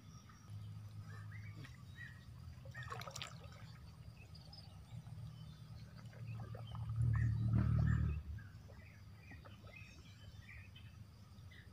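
Light water sloshing and trickling as a man wades chest-deep and lifts a gill net from a flooded stream, over a steady low rumble that swells for about a second and a half about two-thirds of the way through. Faint bird chirps now and then.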